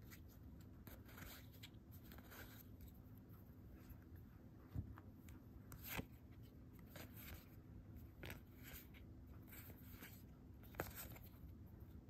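Faint rustle and slide of Magic: The Gathering cards being thumbed off one stack onto another, with a few soft card clicks.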